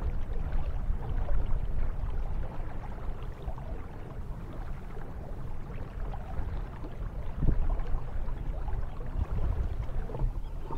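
Wind rushing over the microphone, with water lapping against a kayak's hull; a low, uneven rush with no distinct events.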